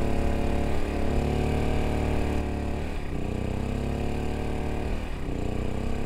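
A small engine running steadily, its pitch wavering slightly.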